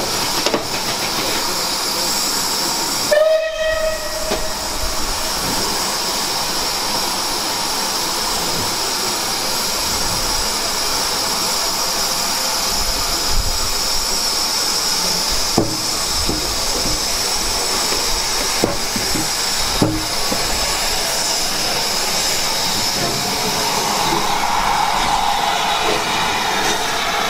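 Steam locomotive No. 34027, a rebuilt Southern Railway West Country class Pacific, hissing steadily as it moves slowly. A short whistle note sounds about three seconds in, and a few sharp knocks come in the middle.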